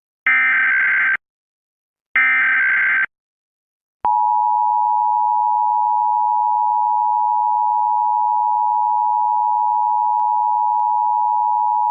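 Emergency Alert System signalling. First come two short screeching bursts of SAME digital header data, about two seconds apart. Then, about four seconds in, the EAS attention tone begins: a steady two-tone signal of 853 and 960 Hz that holds for about eight seconds and announces the national periodic test.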